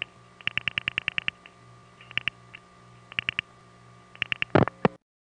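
Recorded telephone line clicking as a call goes through: a quick run of about ten clicks, then shorter groups of three or four, over a faint steady hum on the line, with a louder burst near the end.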